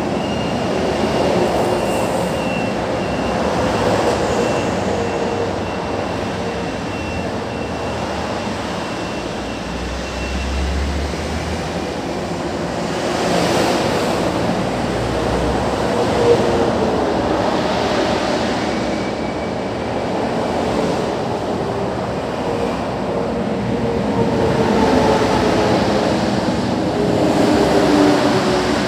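Steady traffic noise from a multi-lane freeway, swelling every few seconds as cars and trucks pass. Near the end it grows louder as an electric commuter train runs along the elevated line beyond the road.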